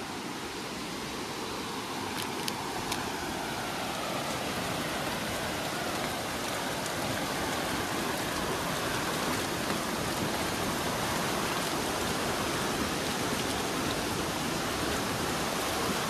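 Steady rush of water from a waterfall, growing slowly louder.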